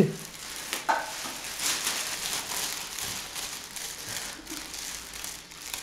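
Thin plastic carrier bag crinkling and rustling in irregular crackles as the animal inside it shifts about.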